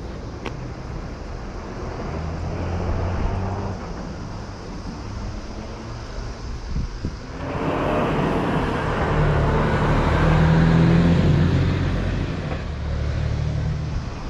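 A road vehicle passing: its engine and tyre noise rise from about halfway through, are loudest a few seconds later, then fade.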